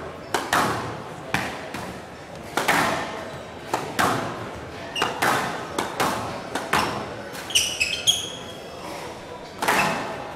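Squash rally: the ball is struck by rackets and cracks off the front and glass walls, each hit echoing round the hall. Rubber-soled court shoes squeak on the floor about three quarters of the way through.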